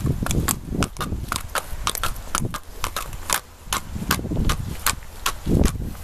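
A horse's hooves clopping on a paved lane as it is led at a walk, several sharp strikes a second.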